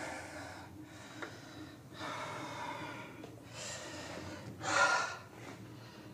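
A man gasping, grunting and breathing hard in a series of strained breaths, the loudest about five seconds in: the effort of straining to lift a very heavy object.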